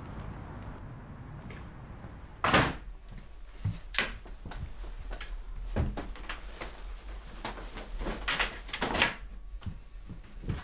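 A house door closing with a loud bang about two and a half seconds in, then a sharp click a second and a half later. A run of lighter knocks and rustles follows as belongings are put down and a jacket is handled.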